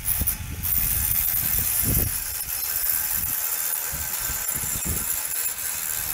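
Wind buffeting the microphone in irregular low rumbling gusts, over a steady high hiss.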